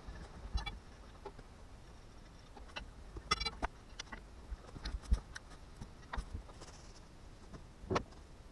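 Scattered metallic clicks and knocks of a wrench and lug nuts coming off a Unimog wheel hub, with two short runs of rapid ticking.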